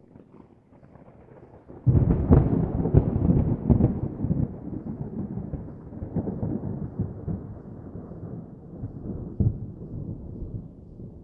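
Thunder: a faint rumble, then a loud crackling clap about two seconds in that rolls on and slowly dies away.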